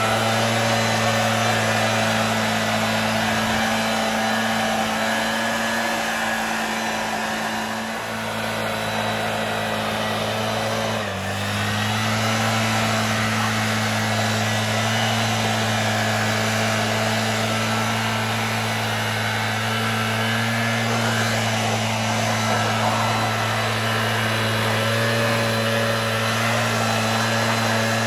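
Gas backpack leaf blower engine running steadily at high speed, with a loud constant air-rush and engine pitch. The pitch dips briefly about eleven seconds in, then comes back up.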